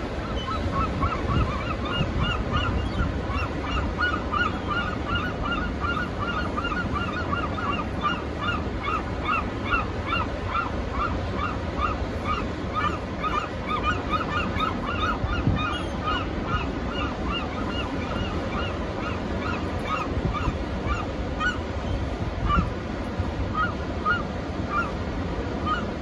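A flock of birds calling in a fast run of short repeated notes, about three a second, thinning to a few scattered calls near the end. A steady low rumble of strong wind and surf runs underneath.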